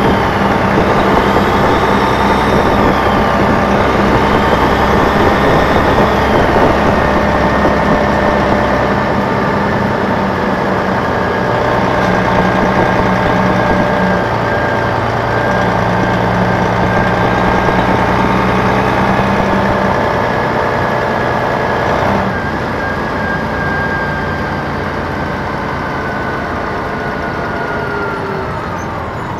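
Detroit Diesel Series 60 diesel engine of a 2002 MCI D4000 coach, heard from the rear of the bus. It runs loudly and steadily, its note stepping up and down several times and dropping in level about two-thirds of the way through, with a high whine that falls away near the end.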